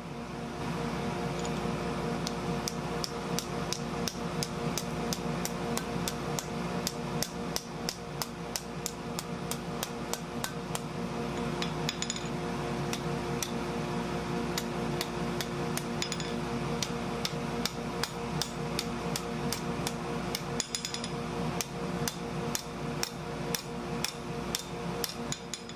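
Blacksmith's hand hammer striking hot steel on an anvil in a steady run of blows, about three a second, folding a small flat-stock holly leaf blank. A steady hum sits underneath the strikes.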